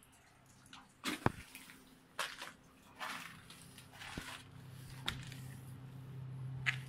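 Footsteps on wet, gritty ground, uneven steps about once a second, with scuffs and handling noise. About halfway a low steady hum comes in and keeps going.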